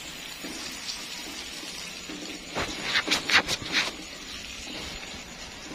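Cassava pieces frying in hot oil in a wok, a steady sizzle. About two and a half seconds in comes a quick run of sharp scrapes and knocks, from the metal spatula working the pan.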